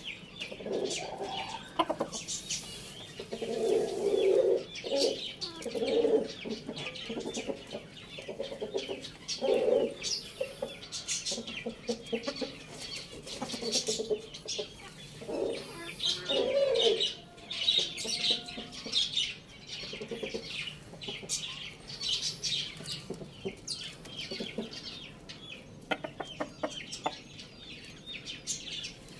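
Chickens clucking in short, scattered calls, with frequent brief high-pitched chirps over them.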